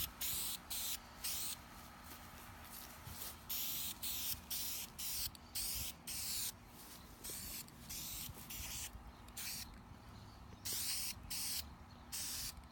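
Aerosol can of gray spray paint hissing in many short bursts, each under a second, as a coat is sprayed onto a wooden plaque.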